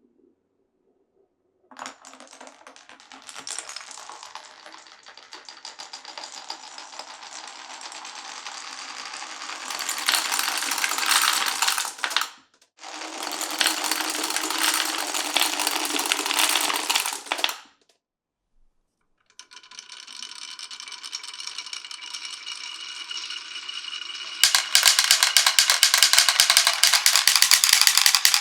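Glass marbles rolling and rattling along a wooden marble run, the rolling breaking off twice briefly, then from about 24 s in a loud, rapid run of clicks as the marbles clatter over a bumpy section of track.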